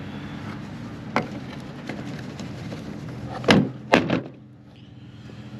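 Plastic retaining clips of a GMC Terrain's chrome liftgate trim panel snapping loose as the panel is pried off by hand: a light snap about a second in, then two loud sharp snaps about half a second apart past the middle. A steady low hum sits underneath.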